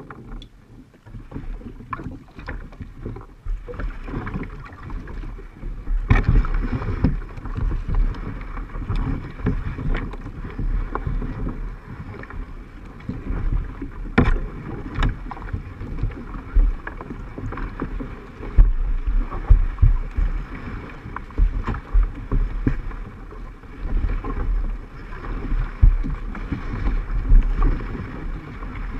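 Wind rumbling on a camera microphone aboard a Sun Dolphin kayak on the water, with irregular low knocks and thumps and a few sharper clicks.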